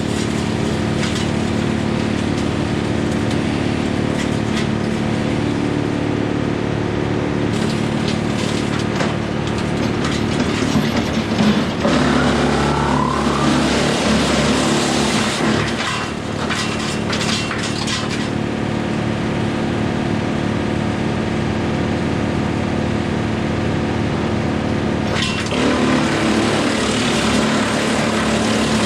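John Deere 4066R tractor driving a Woodmaxx WM8 PTO wood chipper at a steady run, with branches being fed and chipped in bouts of cracking and snapping, heaviest between about 8 and 18 seconds in. A brief rising whine comes about twelve seconds in.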